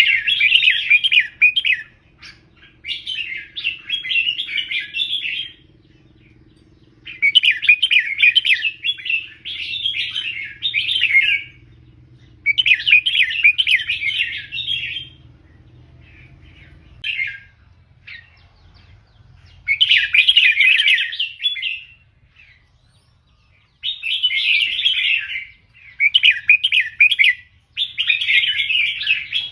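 Red-whiskered bulbul singing its song in repeated phrases of about two seconds each, separated by short pauses.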